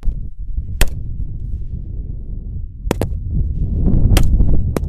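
Rifle shots on a firing range: five sharp cracks at uneven intervals, two of them almost together near the middle, over a steady low rumble.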